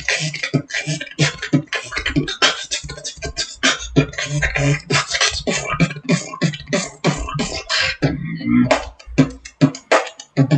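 Fast beatboxing: rapid mouth-made drum hits in close succession over a low vocal bass.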